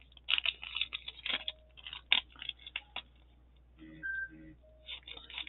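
Plastic packaging crinkling and small items clicking and tapping as diamond-painting supplies are handled on a metal tray, in scattered short bursts with pauses.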